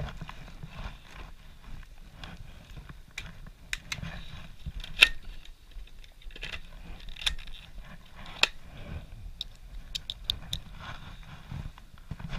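Handling noise: scattered sharp clicks, knocks and scrapes as small objects are picked up and fiddled with by hand, the loudest click about five seconds in and a quick run of ticks around ten seconds.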